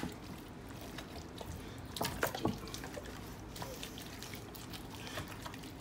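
Hands rubbing a thick spice marinade into raw whole chickens in a bowl: soft wet squelching and dabbing, with a few sharper wet slaps about two seconds in.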